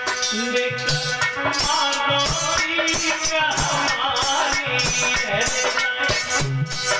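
Live Hindi devotional music: a male singer at the microphone with melodic accompaniment and a shaker or rattle keeping a steady beat.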